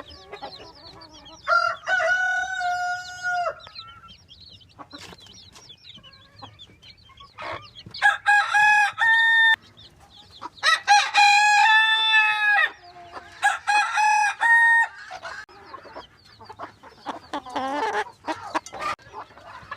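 Roosters crowing, four long crows, with chickens clucking softly between the crows.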